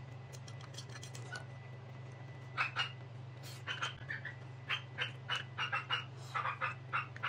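Eating sounds: a metal fork clicking against a small paper bowl, then a run of short, wet chewing and lip-smacking noises, about two a second. A steady low hum sits underneath.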